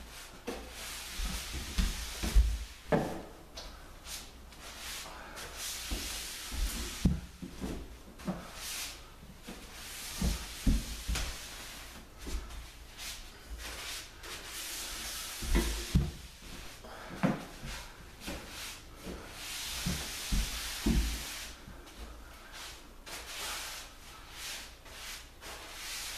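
Block brush for water-based finish rubbing across a sanded wood floor, spreading the finish in repeated swishing strokes. Scattered knocks and thumps come in between the strokes.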